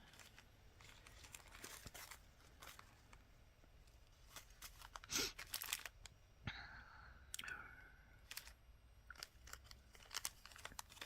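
Faint handling sounds of beads being sorted: scattered small clicks as loose beads are picked up and set down, and the crinkle of little plastic bead bags. A brief squeaky tone comes about six and a half seconds in.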